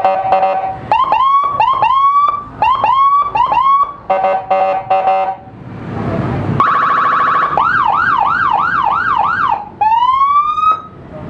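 Electronic motorcycle siren unit in siren mode, cycling through its tones: steady beeping, short rising whoops about twice a second, a warbling tone, a fast up-and-down yelp, then one longer rising whoop near the end. There is a brief break a little past halfway.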